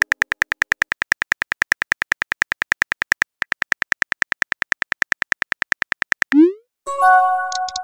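Phone keyboard typing sound effect: rapid, even key clicks at about ten a second, with a short break about three seconds in. Near the end a quick rising swoosh of a message being sent, followed by a chime of several tones.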